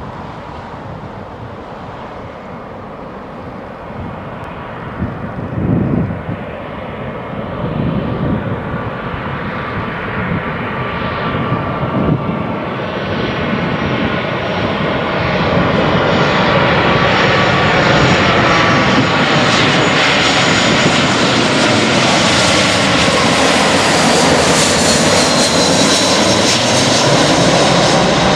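Airbus A320's two IAE V2500 turbofan engines at approach power on final approach, growing steadily louder as the airliner nears and passes close by. From about halfway on, a high engine whine with slightly gliding tones rises over the rumble.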